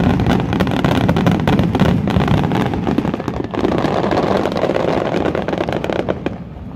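Fireworks barrage: many aerial shells bursting at once, a dense run of sharp bangs and crackles over a heavy rumble, dying down near the end.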